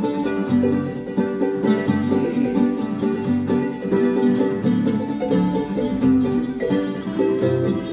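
Ukulele and acoustic guitars strummed together in a Tongan kava-club (kalapu) string-band song, keeping a steady rhythm.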